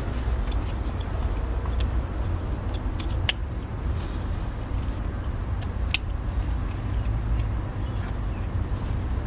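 Steady low rumble of road noise inside a moving car, with a few short sharp clicks about a third of the way in and again around two-thirds of the way in.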